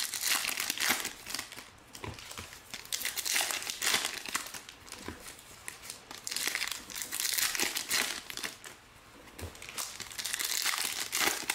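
Foil trading-card pack wrappers being torn open and crinkled by hand: a crackling rustle that comes and goes in about four spells with short lulls between.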